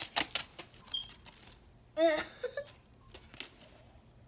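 Sticky tape being peeled and torn off a plastic slime container: quick crackling snaps in the first second, then another single snap near three and a half seconds. A short vocal exclamation comes about two seconds in.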